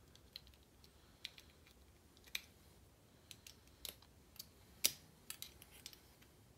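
Small metal lock parts and tools clicking and tapping as a pin tumbler lock is taken apart by hand: a dozen or so short, irregular clicks, the loudest a little before five seconds in.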